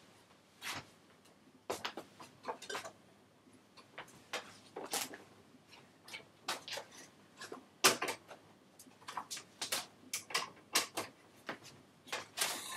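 A CD being handled and loaded into a portable CD player: a run of irregular light plastic clicks and clacks, the sharpest about eight seconds in.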